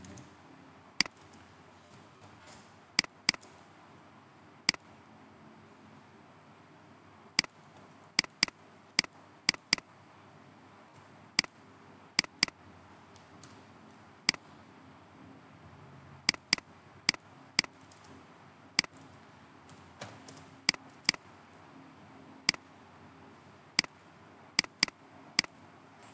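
Computer mouse clicking: sharp single and double clicks at irregular intervals, over a faint steady hiss.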